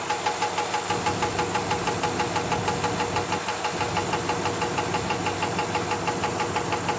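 A 1985 Cadillac Fleetwood Brougham's engine running at idle with a steady, regular knocking, about five knocks a second; the owner does not know the cause.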